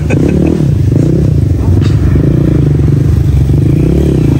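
Dirt bike engine running steadily at idle close by, with a light clatter about two seconds in.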